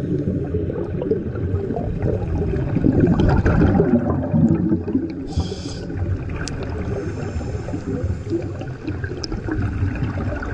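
Underwater scuba-diving sound: a steady muffled low rumble of water and exhaled breathing bubbles, with a short hiss about five seconds in.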